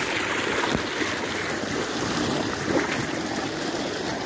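Irrigation water running fast and steadily along a small grassy channel into a flooded field: a constant rushing noise.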